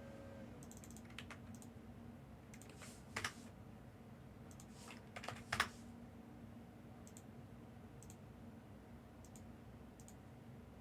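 Faint computer keyboard typing and clicks, sparse and uneven, with a couple of louder taps about three and five and a half seconds in.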